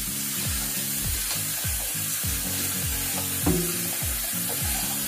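Food frying in a pan, a steady sizzle, with one short knock of a utensil or pan about three and a half seconds in. Background music with a steady bass beat plays underneath.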